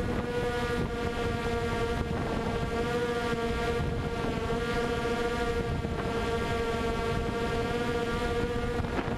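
Quadcopter drone's propellers and motors humming at a steady pitch, with wind rumbling on the microphone.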